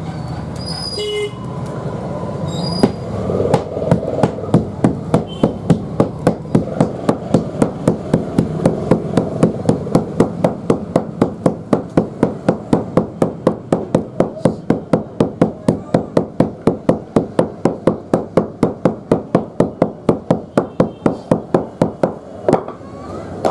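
Wooden mallet pounding sesame-and-jaggery gajak dough flat on a slab, a steady run of blows about three to four a second. The blows start about three seconds in and stop just before the end.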